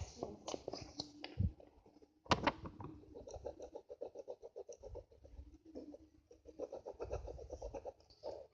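Pencil colouring on paper: quick back-and-forth scratching strokes, several a second, with a couple of sharper knocks in the first few seconds.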